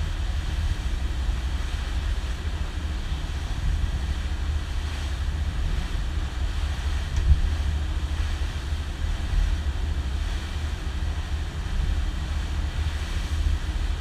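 A motorboat running underway: a steady low rumble of engine and water, with wind buffeting the microphone. A single louder thump comes about seven seconds in.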